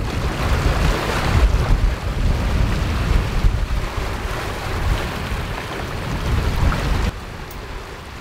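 Wind buffeting the microphone over the rush of waves and water streaming past the hull of a sailing yacht moving fast through choppy sea. The sound drops a little about seven seconds in.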